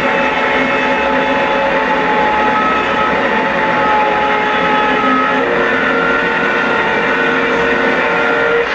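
Loud, steady, noisy drone with several held tones, played back as the dance piece's soundtrack; it cuts off suddenly at the end.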